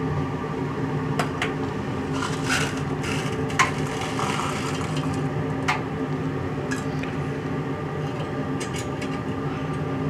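Light taps and clinks as small items are set down on a stainless-steel flask cradle, the sharpest about three and a half seconds in, over a steady low machine hum.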